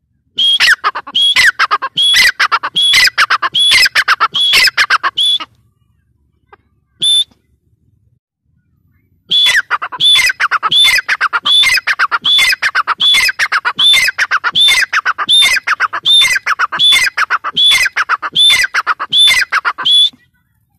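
Gray francolin calling: a fast run of loud, shrill notes, each sliding downward, about two a second. Two long bouts, with a single note in the pause between them.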